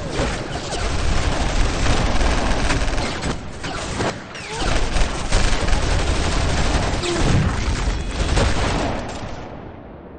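A sustained barrage of gunfire from many handguns at once, the shots overlapping densely. It thins briefly twice, about three and a half and four seconds in, then dies away near the end.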